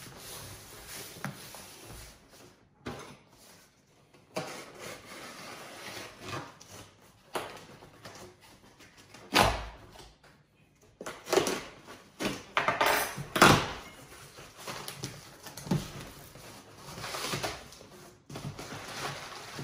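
A cardboard shipping box being unpacked: packing tape picked at and pulled off, with cardboard scraping, rustling and knocking as the box is moved and its flaps are opened. The loudest rips and scrapes come in a cluster in the middle.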